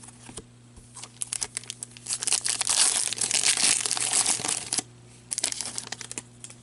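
Foil wrapper of a hockey card pack being torn open and crinkled: scattered crackles, then about two and a half seconds of dense crinkling, and a shorter burst near the end.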